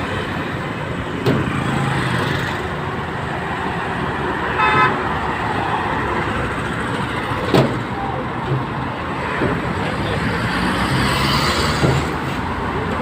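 Steady street traffic with cars passing, a short car horn toot about five seconds in, and a couple of sharp clicks.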